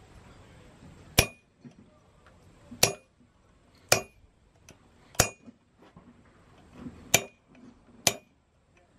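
Six sharp hammer blows on a pointed steel tool set against the tines of a forged iron fork on the anvil, spaced irregularly one to two seconds apart, each with a short metallic ring.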